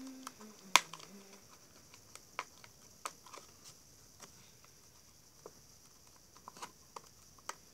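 Scattered small clicks and taps of scissors and a cardboard box being handled while the taped packaging is cut open, with one sharper click about a second in.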